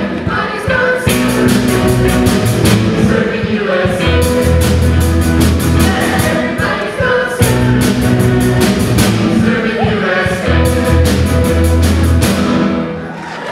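A rock band playing a surf-rock song with singing, driven by a Yamaha drum kit with steadily repeated cymbal strokes. The music drops away near the end.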